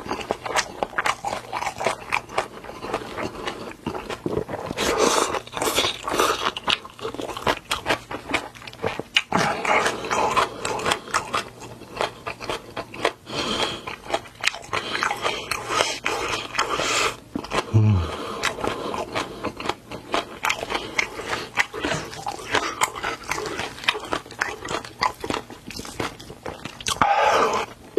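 Close-miked eating: a steady run of wet chewing and crunching bites, with several longer noisy slurps of black-bean noodles and a falling slurp near the end.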